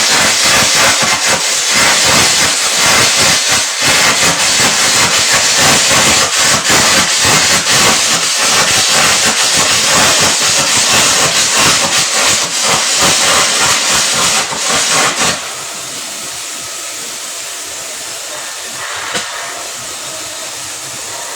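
Electric arc welding arc crackling and sizzling loudly. The arc stops suddenly about fifteen seconds in, leaving a quieter steady hiss.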